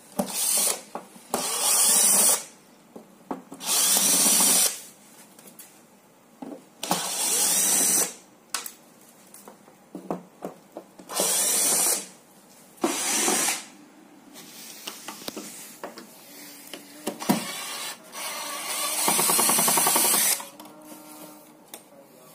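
Cordless drill-driver backing screws out of a TV's plastic back cover, running in repeated short bursts of a second or two with handling clicks in between.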